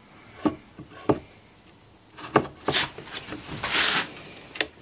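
A tape measure and hands handled against a plywood panel: several separate light taps and knocks, with a short scraping rub a little under four seconds in.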